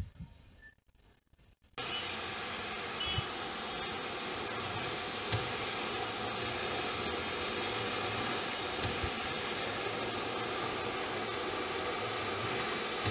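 LNER B12 4-6-0 steam locomotive No. 8572 hissing steadily as steam escapes around its cylinders, with no exhaust beats. The hiss starts abruptly about two seconds in, after near silence.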